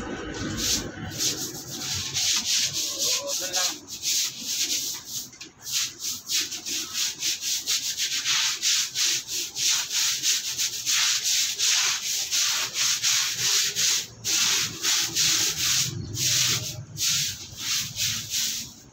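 A stiff brush scrubbing a concrete floor in quick, repeated strokes, with a few short pauses.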